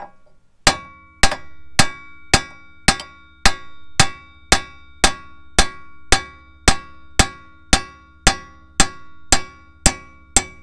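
Steady hammer blows on the end of a wheel stud, driving it out of a car's wheel hub, about two strikes a second, each with a ringing metal clang.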